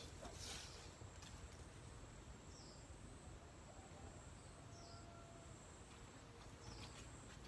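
Quiet outdoor ambience: a few short, faint bird chirps over a steady faint high whine, with a brief rustle of leafy greens being handled just after the start.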